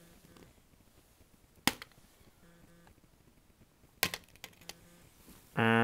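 Two sharp clacks about two seconds apart, with a few light ticks after, as toy game pieces are handled. A loud, steady buzzing tone starts right at the end.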